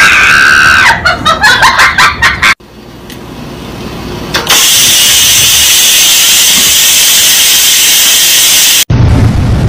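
Electric pressure rice cooker venting steam: a loud, steady hiss that starts suddenly about halfway through and stops abruptly near the end. It is preceded by a couple of seconds of music.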